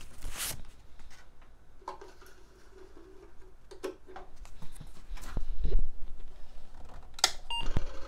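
Clicks and knocks of a 5.25-inch floppy disk being handled and loaded into an Apple II disk drive. Near the end comes a sharp click and a short beep as the Apple IIe powers on, and the floppy drive starts running.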